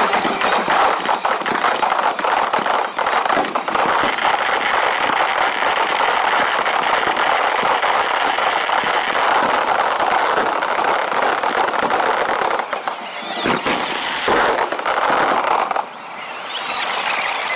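Fireworks barrage: many aerial shells bursting at once in a dense, continuous crackling rumble, easing briefly twice near the end.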